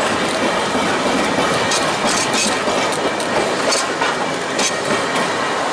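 Manx Electric Railway electric tram running along the track, heard from on board an open-sided car: a steady rumble and rattle of wheels on rails, with irregular sharp clicks.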